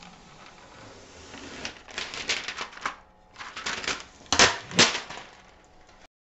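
Thin protective plastic film being peeled off a glass 3D-printer build plate, crackling in rough rapid clicks. There is a short lull partway through, and the two loudest crackles come near the end.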